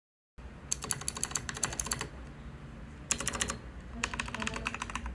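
Typing on a mechanical keyboard fitted with Outemu MX switches: rapid key clicks in three runs, the first and longest about a second in, a short one past the middle, and another near the end.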